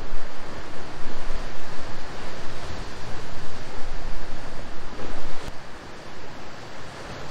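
Wind and sea surf making a steady rushing noise, with gusts buffeting the microphone. A single short click about five and a half seconds in, after which the wind eases a little.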